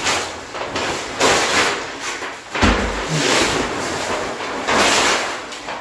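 Brown kraft paper being torn by hand into pieces: about five long rips and rustles of stiff paper in a row.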